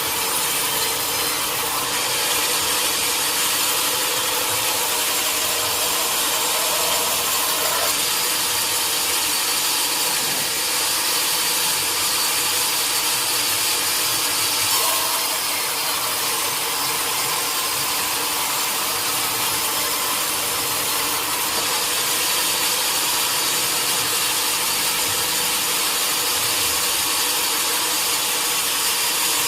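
Sawmill saw cutting through a teak log, with the mill's motor running, giving a steady, even noise without breaks.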